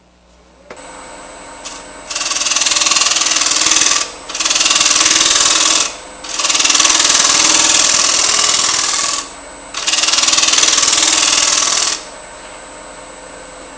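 Wood lathe starting up and running with a steady whine, while a negative rake scraper cuts inside the spinning wooden bowl in four loud scraping passes of about two to three seconds each, with short pauses between them; the lathe keeps running after the last pass.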